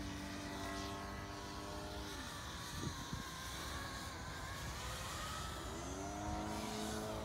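FPV quadcopter's electric motors and propellers whining, the pitch sliding down about two seconds in and climbing back up near the end as the throttle comes off and on again, with wind rumble on the microphone.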